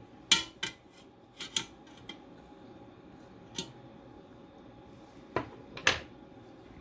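Metal tongs clinking and knocking against the Ninja Foodi's cooking basket as a pork roast is turned and centred: several sharp clinks in the first two seconds, one in the middle and two more near the end, over a faint steady hum.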